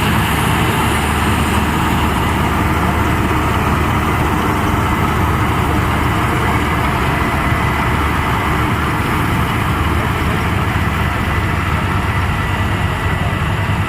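Hira combine harvester's diesel engine running steadily, a loud, even drone with no change in speed.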